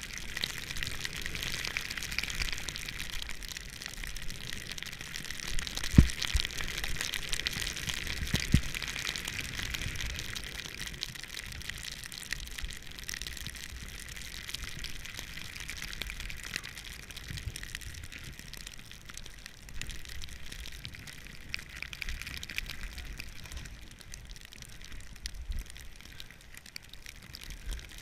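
Snowboard sliding through fresh powder: a steady hiss of the board running over the snow, with a low rumble underneath. Two sharp thumps come about six seconds in and again a couple of seconds later, and the hiss eases off in the second half.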